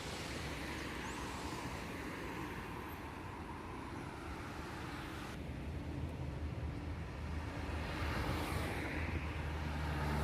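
Steady road-traffic noise: engine and tyre rumble, swelling over the last couple of seconds as a vehicle grows louder.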